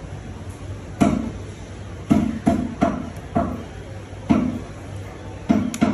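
Meat cleaver chopping through a chicken into a wooden chopping block: about eight heavy, sharp thuds at uneven spacing, several in quick succession in the middle.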